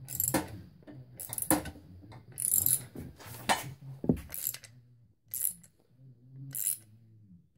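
Metallic clicks and clinks in short bursts, roughly once a second, from a socket wrench winding down a threaded bushing-installer tool, pressing a bushing into an aluminium GY6 scooter crankcase.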